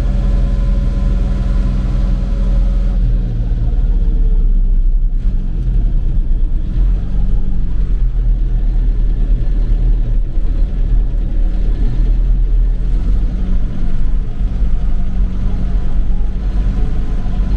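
Old tractor engine running steadily under load, pulling a full manure trailer, with its valve clearance freshly set; the engine note shifts a little a few seconds in.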